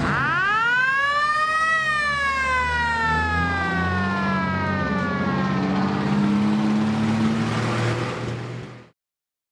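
Fire engine's mechanical siren winding up in pitch for about two seconds, then slowly coasting down, over the low rumble of an engine; the sound cuts off suddenly near the end.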